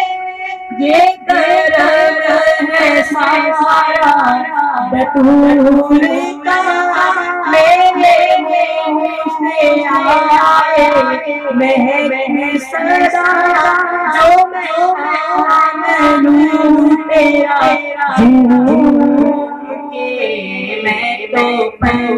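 A boy singing a naat, a devotional Urdu song, solo into a microphone. The melody is drawn out and ornamented, the pitch bending and wavering on long held notes, with a brief breath pause about a second in.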